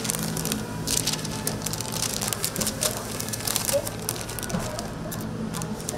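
Sandwich wrapping paper crinkling and crackling in quick, irregular bursts as it is folded and rolled tightly around a sandwich, over a steady low hum.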